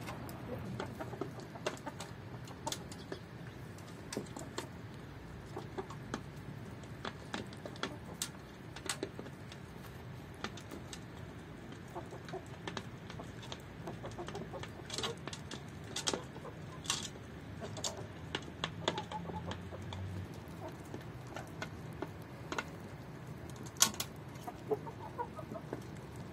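Lori Golin chickens pecking feed, making many quick, sharp beak taps that are busiest in the second half, with a few soft clucks.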